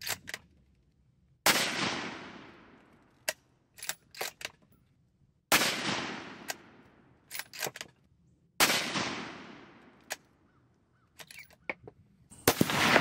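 Three rifle shots from a 6.5 Creedmoor Ruger American bolt-action rifle, about four and three seconds apart. Each sharp crack rolls away over about two seconds. Between the shots come quick metallic clicks of the bolt being cycled, and a burst of noise starts near the end.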